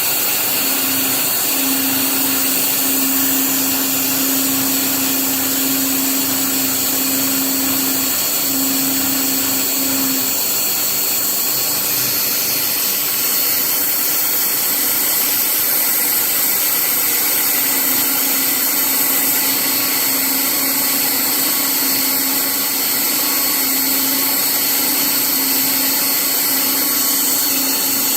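Haas TM-2P CNC mill running, its spindle turning a small thread mill to cut 8-40 screw threads, with a continuous hissing rush of machine noise and a high whine. A lower hum drops out from about ten to seventeen seconds in, then returns.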